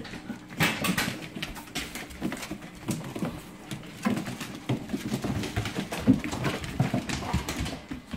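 Dogo Argentinos play-wrestling on a tile floor: irregular clicking and scrabbling of claws and paws, with scuffling bodies.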